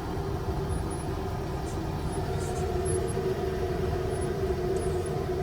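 Car driving, heard from inside the cabin: a steady rumble of engine and road noise with an even hum.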